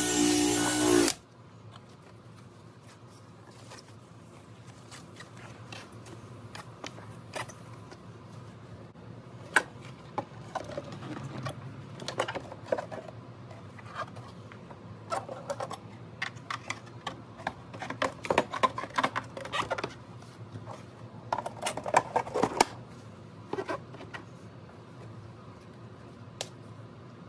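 A cordless drill spinning a foam buffing pad runs for about a second and stops abruptly. Then come scattered clicks, knocks and light rattles of hard plastic parts and tools being handled, busiest in the middle of the stretch.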